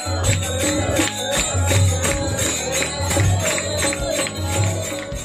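Bhajan music with a steady beat of handclaps and jingling percussion, starting to fade out near the end.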